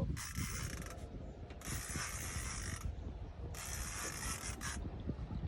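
A fishing reel cranked in three bursts of about a second each, with a ratcheting whir, as a hooked salmon is pumped in: rod pulled up, then line reeled in on the way down. A low rumble runs underneath.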